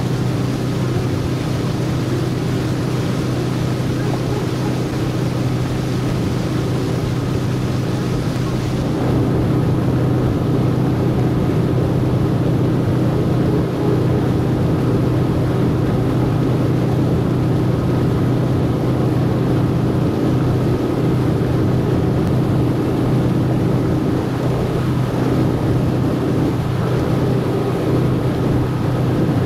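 A small motorboat's engine runs steadily while the boat cruises slowly, giving a constant low hum. About nine seconds in, the high hiss over it falls away and the engine sounds slightly louder.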